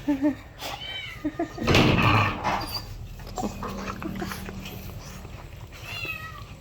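A small pet animal's short, high-pitched cries, rising and falling, several times, with a louder noisy burst about two seconds in.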